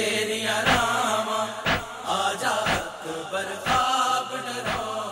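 Noha, a Shia lament, chanted by a male voice in a slow melodic line over a steady beat that falls about once a second.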